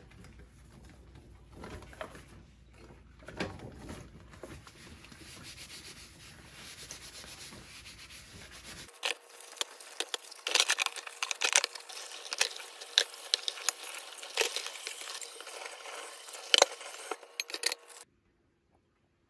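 Hand dishwashing at a kitchen sink: rubber-gloved hands scrubbing dishes, with plastic containers, glassware and metal tongs clattering and clinking. From about nine seconds in, a steady hiss runs under sharper, louder clinks, and the sound stops abruptly near the end.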